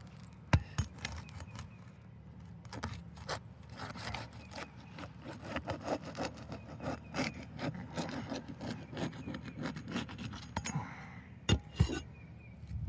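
A tool working under an asphalt roof shingle, scraping and crackling in irregular strokes as it breaks the shingle's sealant bond. Two sharp knocks come near the end.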